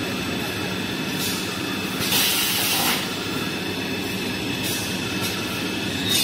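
Toilet paper and kitchen towel rewinding line running, the paper web feeding off the unwind stand: steady machine noise with a few short hisses, the longest about two seconds in.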